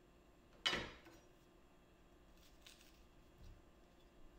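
A santoku knife slices kernels off a fresh corn cob against a wooden cutting board. One sharp cut comes about a second in, then a few faint scrapes of the blade.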